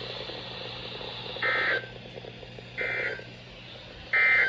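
NOAA Weather Radio SAME end-of-message data bursts: three short, identical two-tone digital chirps about 1.3 s apart over steady radio hiss. They mark the end of the severe thunderstorm warning broadcast.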